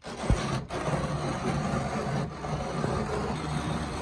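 Small coffee grinder grinding freshly roasted Kona coffee beans: a steady rasping grind.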